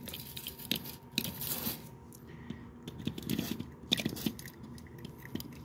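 Tape measure blade being pulled out further along carpet: scattered soft clicks and scrapes of handling, with a longer scraping rush about a second in.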